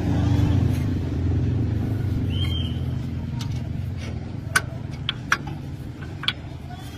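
A heavy engine running with a low rumble that grows steadily quieter, with a few sharp clicks near the end.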